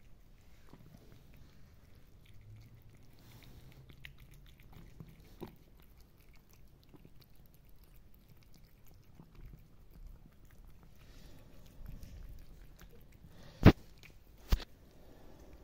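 Cats chewing dry kibble, a run of small crunchy clicks, with two sharp knocks a little under a second apart near the end.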